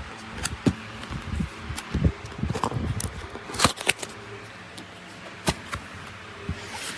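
A package being handled and opened: scattered clicks and knocks, the loudest a quick cluster about halfway through, then a rustle near the end.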